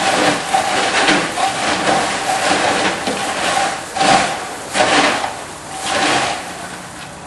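Popcorn rustling and clattering as it is scooped and thrown back and forth across a perforated stainless-steel sifting table with a plastic scoop, shaking unpopped kernels out through the holes. The swishes come about once a second and grow fainter toward the end.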